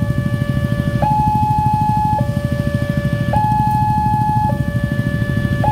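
Railway level-crossing warning alarm sounding while the barrier is down: an electronic two-tone signal that switches between a low and a high note about every second, each note held steady. Underneath runs a steady low rumble of motorcycle engines idling at the crossing.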